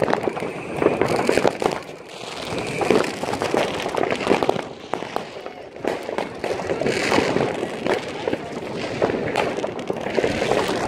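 Many fireworks and firecrackers going off at once, a dense, continuous crackle of overlapping bangs and pops.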